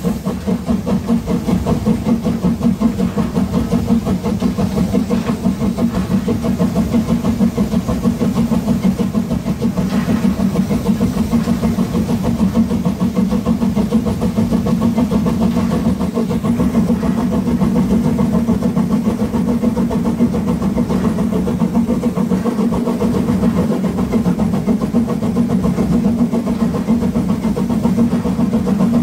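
Narrow-gauge 2-10-2T steam tank locomotive 99 7245 working under steam as it pulls out, its exhaust beating in a fast, steady rhythm, heard close up at the front of the engine.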